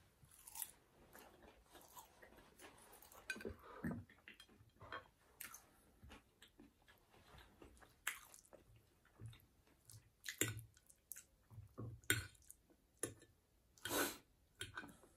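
A person chewing food close to the microphone: irregular mouth clicks and crunches, with a few louder ones in the second half.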